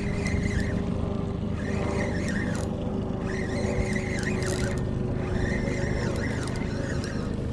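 Boat motor running steadily at trolling speed, with a higher whirring in short spells from a fishing reel being cranked as a hooked bass is brought in.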